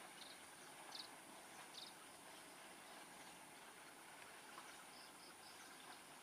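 Near silence: faint outdoor hiss with a few short, high chirps scattered through it.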